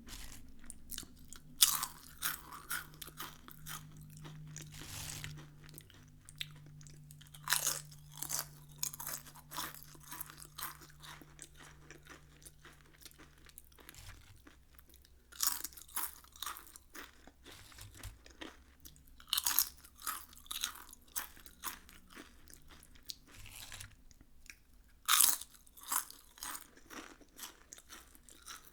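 Lay's potato chips being bitten and chewed: a sharp, crisp crunch at each bite, followed by a run of smaller crunches as the chip is chewed. About five bites fall several seconds apart.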